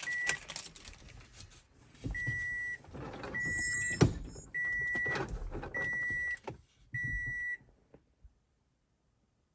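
Toyota Camry's reverse-gear warning beeper, a high steady beep about once a second, five times, sounding as the car is put in reverse to bring up the backup camera; it stops about seven and a half seconds in. Knocks and rustling of handling come before and between the beeps, the sharpest about four seconds in.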